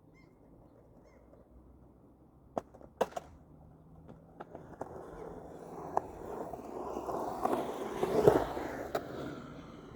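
Skateboard: two or three sharp clacks, then wheels rolling on hard ground, growing louder to a peak about eight seconds in and fading away.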